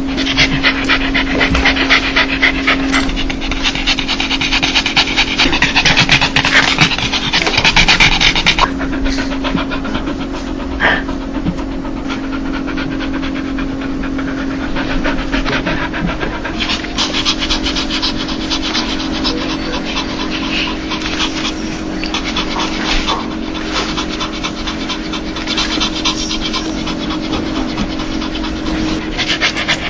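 A dog panting rapidly and continuously, the quick open-mouthed 'heh-heh-heh' breathing of a happy, excited dog, often called a dog's laugh. A steady low hum runs underneath. The panting turns softer and less bright about nine seconds in.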